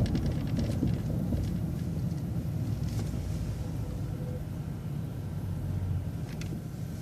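Low, steady rumble of a city transit bus, heard from inside, while it waits to turn left at a light.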